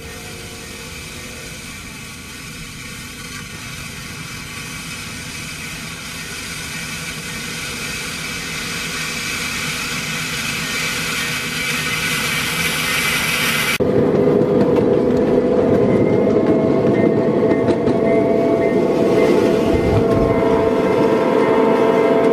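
Wedge snow plow on a ride-on scale railroad, pushed by a miniature diesel-style locomotive, scraping and crunching through icy snow on the track. It grows steadily louder as it comes closer. About fourteen seconds in, the sound changes abruptly to the louder, steady rumble of the train running, with a few steady whining tones over it.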